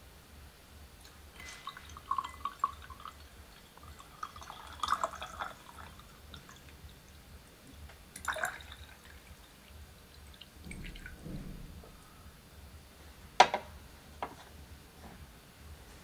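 Water poured in a thin stream from a small Yixing clay teapot into a glass pitcher, with light clinks and drips. Near the end there is one sharp knock, the loudest sound, as the teapot is set down on the wooden tea tray, then a lighter click.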